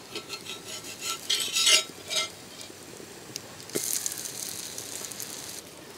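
A flat metal spatula scraping under a dosa on a hot griddle in several short strokes. After a sharp knock, a dosa sizzles steadily on the hot griddle for about two seconds.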